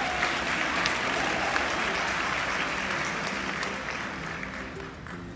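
A large audience applauding, the clapping thinning out and fading over the last second or so.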